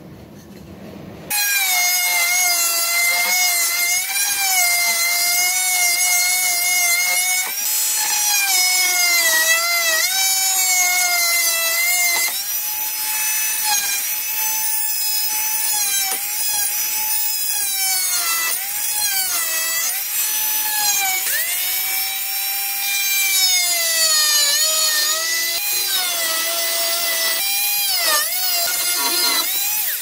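Dremel Multi-Max MM35 oscillating multi-tool cutting wood, starting about a second in. Its high buzzing whine sags in pitch each time the blade bites into the wood and recovers when it eases off.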